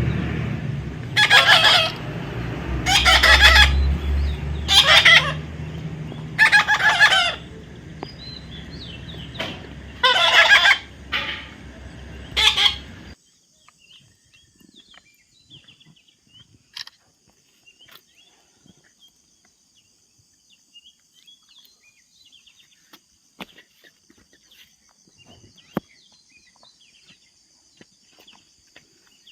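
A parrot calling loudly over and over: about seven harsh, shrill calls, each under a second, spaced roughly a second and a half apart, stopping about 13 seconds in. After that only faint scattered ticks.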